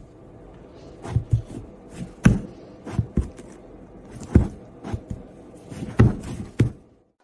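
A series of about a dozen irregular thumps and knocks, unevenly spaced.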